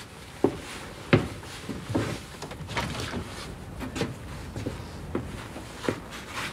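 A man moving about a wooden attic and handling a roof window: a run of uneven wooden knocks and clunks, about one a second, the loudest about a second in.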